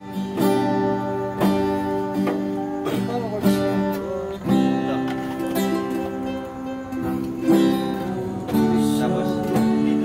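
Acoustic guitar strumming chords, struck again about once a second.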